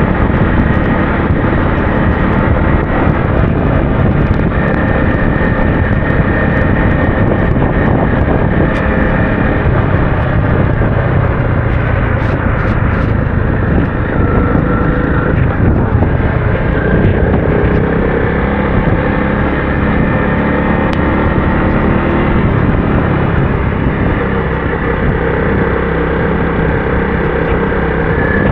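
Adventure motorcycle engine running steadily while the bike is ridden along a trail, its revs drifting slightly up and down.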